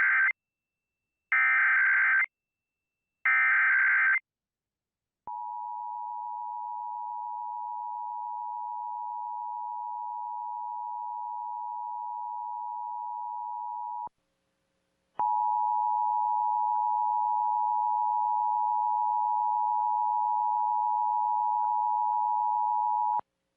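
Emergency Alert System SAME header: three short, screechy digital data bursts about a second each. Then the EAS two-tone attention signal (853 and 960 Hz together) sounds steadily for about nine seconds, stops, and comes back louder for about eight more. This opens a required monthly test alert.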